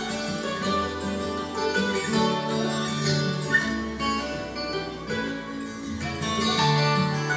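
Instrumental break of a folk song: strummed and picked acoustic guitar with a bass line, no singing, played back from tape on a Panasonic cassette deck. The treble is cut off above about 8 kHz.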